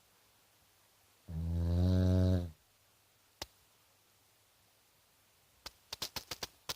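Snoring: one loud, low, buzzing snore lasting about a second. A sharp click follows a second later, then a quick run of about seven clicks near the end.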